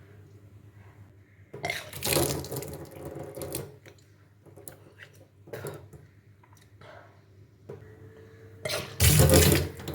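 Water gushing and splashing in bursts: a two-second gush about a second and a half in, small splashes after it, and a louder, heavier gush near the end.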